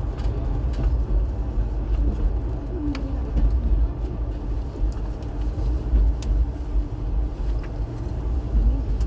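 Passenger train running along the track: a steady low rumble with scattered clicks and rattles.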